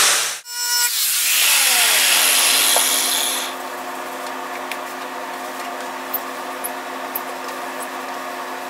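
A 4.5-inch angle grinder with a metal-shrinking disc runs against the bare steel of the car's front valance, heating a low spot so it will shrink. The grinder is switched off just after the start and winds down with a falling whine under a hiss that fades about three seconds in. A steady hum remains.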